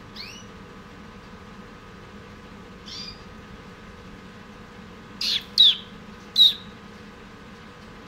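Caged pet songbird chirping: short, sharp calls, a faint one at the start and another about three seconds in, then three loud ones in quick succession between about five and six and a half seconds in, over a steady faint hum.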